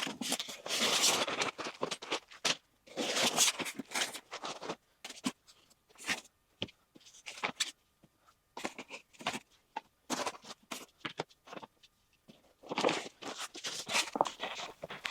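Packing material and cardboard being handled and pulled apart: irregular scraping and rustling bursts with scattered knocks and clicks.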